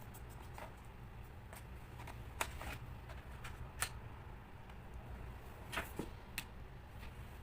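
Scattered light clicks and taps from handling a laptop's parts during disassembly, a few of them sharper, over a steady low hum.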